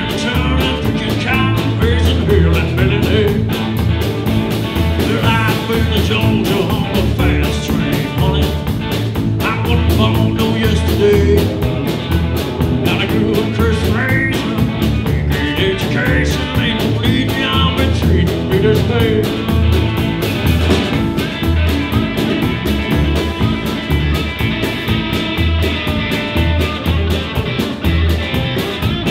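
A band playing live on electric guitar, upright bass and drum kit, with a regular bass drum beat throughout.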